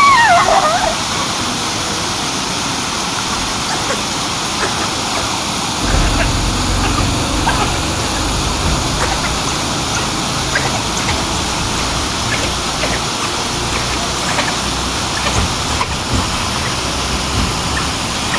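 A short, high, wavering yelp at the very start as the lion lunges at an African wild dog. After it comes a steady rushing noise, heavier and lower from about six seconds in, with scattered faint chirps.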